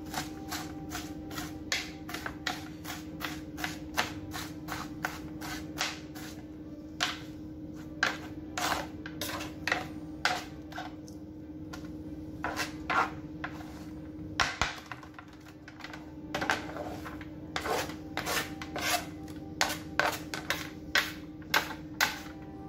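Kitchen knife chopping onions on a plastic cutting board: sharp knocks of the blade on the board, two or three a second, with a couple of short pauses.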